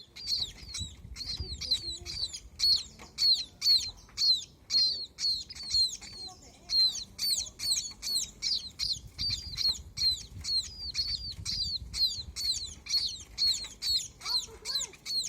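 Baby birds chirping in rapid, high-pitched peeps, about three a second, without pause.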